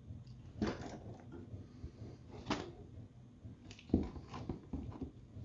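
A few faint, scattered knocks and clicks from handling a lawn mower held tipped on its side, over a faint low steady hum.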